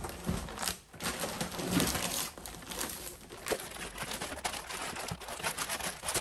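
Plastic wrap and foam packing crinkling and rubbing as an inverter is handled in its cardboard box, played back sped up as a rapid, chattering run of crackles and clicks.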